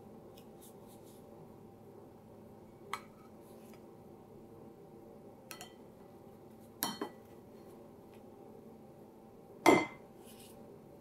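A metal slotted turner clinking against white ceramic bowls as pancakes are lifted from one bowl to the other: a handful of short sharp knocks a second or two apart, the loudest near the end.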